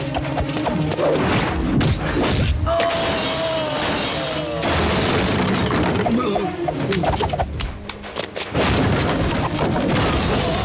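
Film fight-scene sound effects: repeated hard punch and body-hit thuds with a long loud crash about three seconds in, over action background music.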